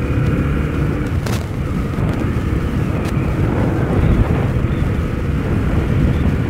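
Motorcycle under way at a steady speed: engine running under heavy wind buffeting on the microphone, with two short clicks about a second and three seconds in.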